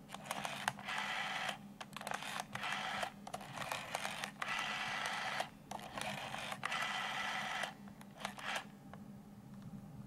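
Rotary dial of a Western Electric Trimline phone being dialed through a string of digits. Each digit is a pull of the dial and then its smooth, whirring spin back to rest. The whirring stops about eight seconds in.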